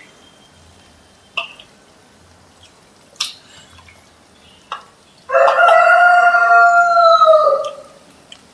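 A rooster crows once, a single long call of about two and a half seconds starting about five seconds in. A few short knocks come before it.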